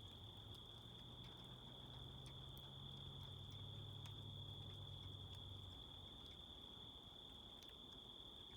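Crickets chirping steadily in a faint, high, unbroken chorus, with scattered faint ticks. A low rumble swells in the background for the first six seconds and then dies away.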